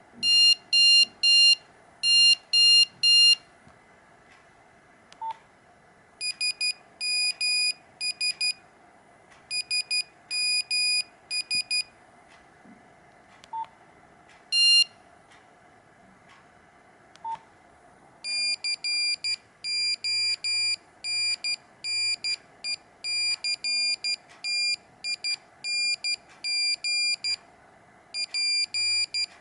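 Nokia 5125 mobile phone's built-in buzzer playing its original monophonic ringtones: high, single-pitched electronic beeps in quick rhythmic patterns. The beeps break off and start a new pattern several times, with one long, steady run of beeps in the second half.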